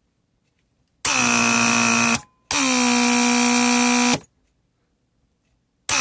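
1994 Mercedes S600 coupe central-locking pneumatic pump running on the bench, its electric motor powered by shorting two terminals. It gives a loud, steady buzz in three separate runs: about a second, then nearly two seconds, then a third starting near the end. Each run rises slightly in pitch as it starts and cuts off abruptly.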